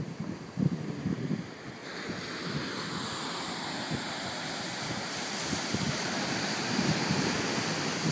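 Wind gusting on the microphone over ocean surf. About two seconds in, the sound changes abruptly to a steady rushing hiss of surf and steam where lava pours into the sea; it grows slowly louder.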